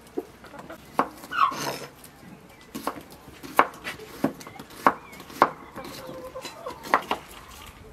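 Kitchen knife slicing a cucumber on a wooden chopping board: a series of sharp, unevenly spaced chops as the blade hits the board. A short animal call sounds once, about one and a half seconds in.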